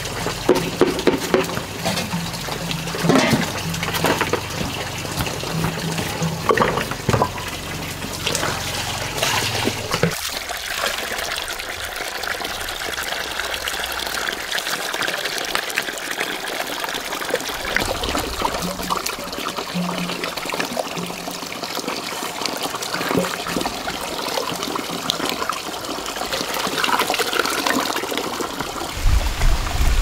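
Water running and splashing steadily, with scattered knocks in the first ten seconds.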